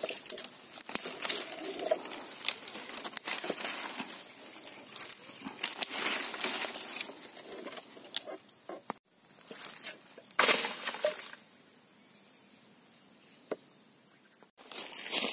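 Dry fallen branches and leaf litter crackling and rustling as they are stepped through and handled, with many sharp twig snaps and a louder rustle about ten seconds in. A steady high whine runs underneath, and the sound cuts off abruptly twice.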